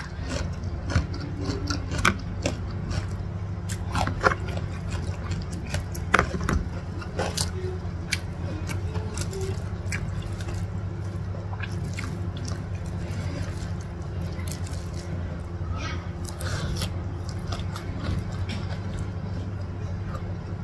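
Close-miked eating sounds: wet chewing, smacking and biting of mouthfuls of fried instant noodles with prawns and raw lettuce. Scattered sharp clicks run through it, denser in the first half, over a steady low hum.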